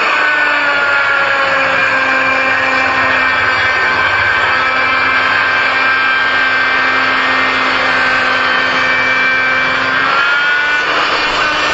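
A handheld electric power tool motor running continuously under load while wood is worked. Its pitch sags slowly, then dips briefly near the end as the load changes.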